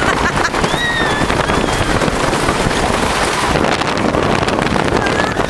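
GhostRider wooden roller coaster train running at speed along its wooden track, a loud, steady rumble and rattle mixed with wind buffeting the microphone. A brief high squeal rises above it about a second in.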